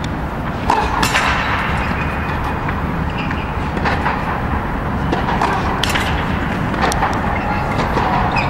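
Tennis balls being hit with rackets and bouncing on the indoor court, a sharp knock about every second, over a steady low rumble.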